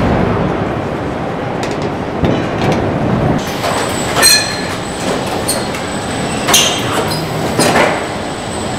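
Car assembly line floor noise: a steady mechanical rumble with several sharp metal clanks, and a thin high whine that comes in about three seconds in.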